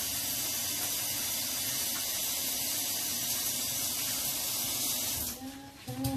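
Kitchen sink faucet running in a steady hiss, shut off abruptly about five seconds in. A few light knocks and a brief squeak follow near the end.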